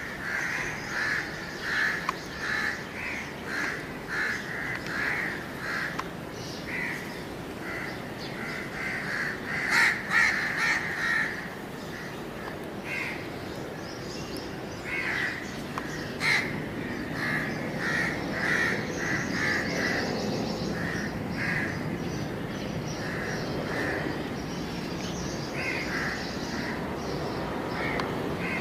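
Crows cawing over and over, in quick runs of short calls. A low steady rumble grows in the second half: the jet engines of a twin-engine airliner on approach.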